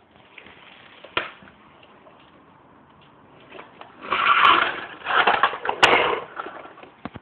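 Toy roller-ball vacuum cleaner rattling and whirring as it is pushed about, with a loud burst of rattling in the second half and a few sharp plastic clicks.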